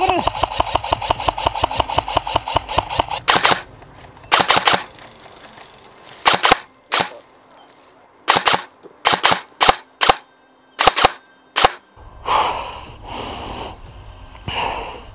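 Airsoft rifles firing: a rapid full-auto burst of sharp clicks lasting about three seconds, then single shots and short bursts with pauses between them.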